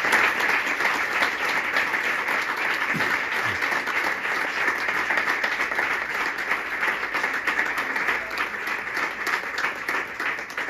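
Audience applause: many hands clapping in a dense patter that gradually fades toward the end.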